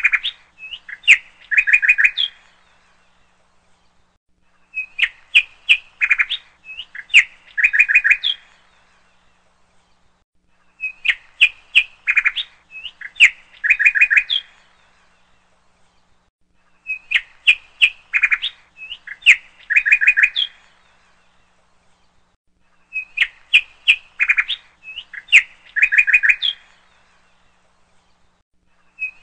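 A looped recording of bird chirps: the same short phrase of quick, high chirps, about three seconds long, repeats every six seconds or so, with dead silence between.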